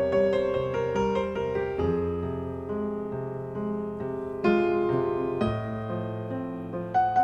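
Background piano music, its notes struck and left to ring.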